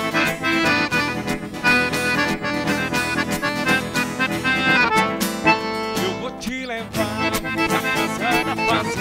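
Two piano accordions and an acoustic guitar playing a lively mix of sertanejo and forró. A man's singing voice comes in over the accordions about halfway through.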